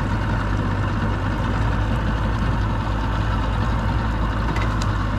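Boat's outboard motor idling, a steady low hum that does not change.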